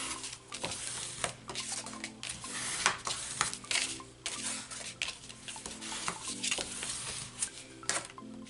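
Double-sided tape being handled and applied to paper cardstock flaps: a run of scratchy, crackly rasps with small clicks and taps.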